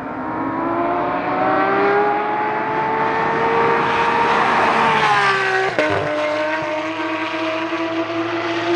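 Porsche 992 GT3's flat-six engine running hard through prototype street headers and a loud muffler as the car accelerates. The pitch climbs for about five seconds, drops sharply about six seconds in at an upshift, then climbs again.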